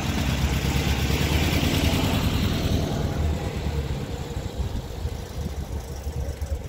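A vehicle engine idling steadily, loudest in the first few seconds and then easing off.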